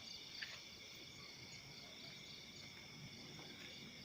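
Faint night-time chorus of crickets and other insects: steady high-pitched trilling, one voice pulsing evenly.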